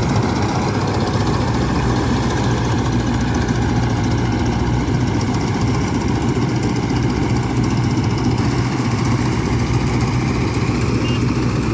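Mahindra Arjun Novo 605 DI tractor's four-cylinder diesel engine running steadily, driving a tractor-mounted harvester.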